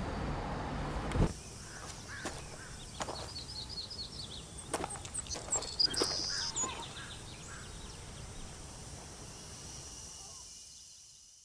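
Open-air rural ambience with small birds chirping: a quick run of falling chirps and several short high calls, with a few sharp clicks, fading out near the end. It opens with about a second of steady car-cabin rumble that cuts off abruptly.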